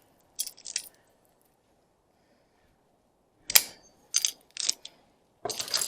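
Metal hand tools clinking against each other as they are handled in a toolbox: a few light clinks, a lull, then a sharp clank about three and a half seconds in, followed by more clinks and rattles.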